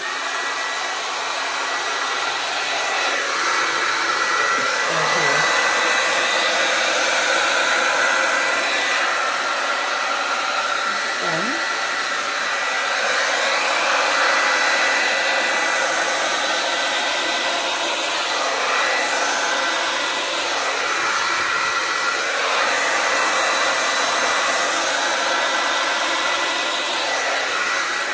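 Handheld hair dryer running on high with the cool setting: a steady rush of air with a thin, high whine.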